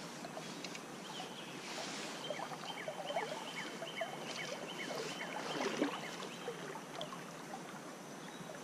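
Shallow creek water flowing steadily over a rippled run. Faint short high chirps repeat for a couple of seconds about two to four seconds in.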